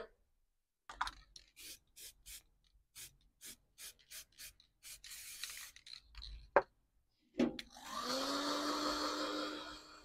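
A run of short rubbing strokes, about two a second, then a few clicks. Near the end a handheld heat gun switches on, its fan motor humming up to speed and blowing steadily for about two seconds to dry freshly painted parts, before it is switched off.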